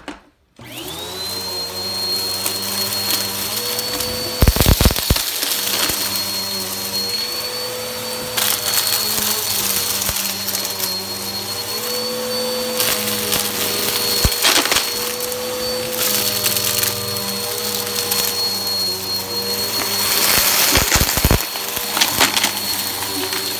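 Bissell upright vacuum switched on about half a second in, its motor spinning up to a steady high whine over a lower hum as it runs on carpet. Crackles and rattles of crunchy debris being sucked up come several times, loudest about four to five seconds in.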